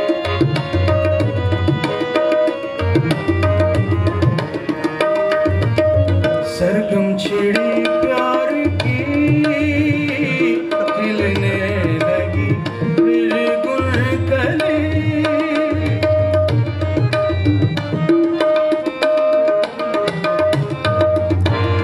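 Tabla and harmonium playing a rhythmic passage of a Sufi song: deep bass strokes of the tabla's left-hand drum in a steady rhythm under the harmonium's sustained notes.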